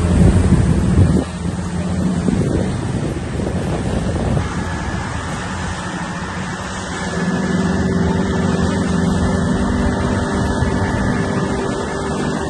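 Boat engine running steadily underway, with a rushing noise of wind and water over it; the engine note shifts slightly about halfway through.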